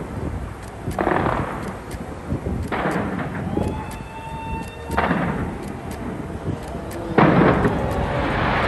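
Aerial fireworks bursting in a series of booms about every two seconds, each followed by crackle. The loudest burst comes near the end, and a sustained crackling rumble follows it.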